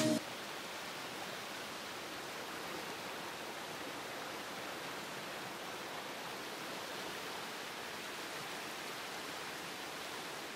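Music cuts off right at the start, leaving a steady rushing of flowing river water: an even, hiss-like noise with little low end.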